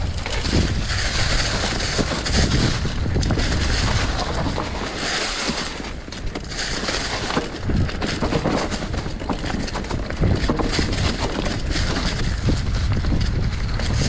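Mountain bike tyres rolling over a trail covered in dry fallen leaves, a continuous crunching crackle with many sharp rattling clicks from the bike, over a low wind rumble on the microphone.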